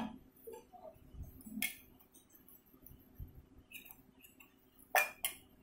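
A spoon clinking against a small steel bowl a few times, with two sharper clinks close together near the end.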